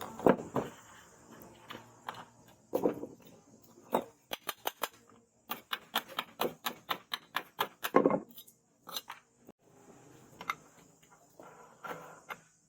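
Irregular metallic clinks and knocks of hand tools on steel, with a run of quick taps in the middle and a few heavier knocks.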